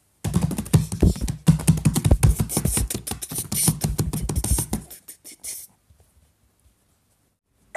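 A fast run of clicks and low thumps, several strokes a second, lasting about five seconds and then cutting off.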